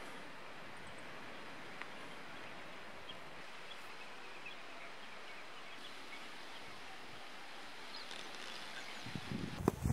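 Steady mountainside outdoor ambience, an even hiss with a few faint high chirps. About nine seconds in, footsteps start crunching and knocking on a rocky, gravelly trail.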